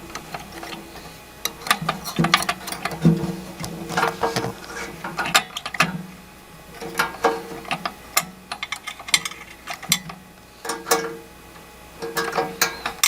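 Small metal carburetor parts clicking and rattling in irregular clusters as they are handled and fitted by hand.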